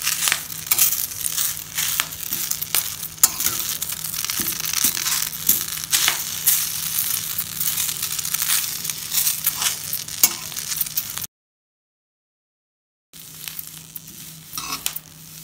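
Curry leaves being dry-roasted and stirred in a metal kadai with a metal spatula, which scrapes and clicks against the pan over a low steady hum. The sound cuts out completely for about two seconds near the end, then comes back quieter.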